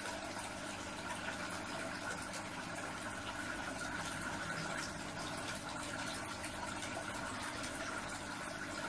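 Steady hum of an aquarium pump with water running and trickling.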